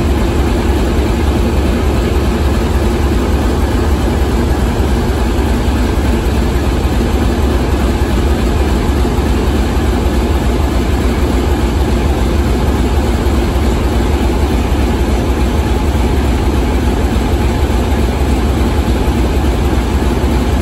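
16V280ZJA V16 diesel engine of a diesel locomotive idling steadily, a deep, even rumble that does not change.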